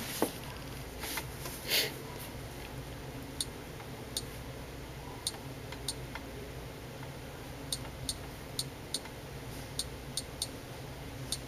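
Key clicks from the slide-out hardware keyboard of an HTC Dream (T-Mobile G1) Android phone as an IP address is typed in: a dozen or so sharp taps at uneven intervals, over a low steady hum.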